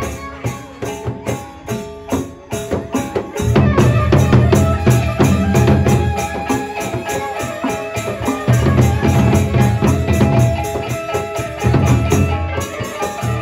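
Sasak gendang beleq ensemble playing live: large double-headed barrel drums beaten under a fast, steady clash of cymbals and ringing gong tones. The deep drum beats are out for the first three seconds or so, come in strongly, drop out briefly in the middle, then return.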